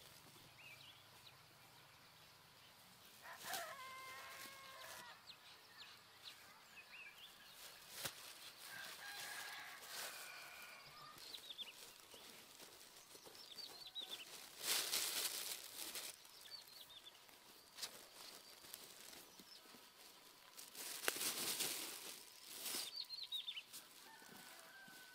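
Hands crumbling and scraping dry, lumpy soil around seedlings, in two louder rustling spells in the second half. A rooster crows once in the background about four seconds in, with chickens calling and small birds chirping now and then.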